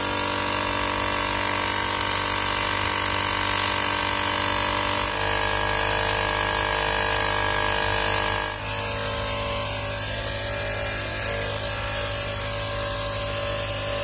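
Windek RCP-D23A 12 V car vacuum-compressor running with a steady motor hum and whine; its tone shifts about five seconds in and again near the nine-second mark.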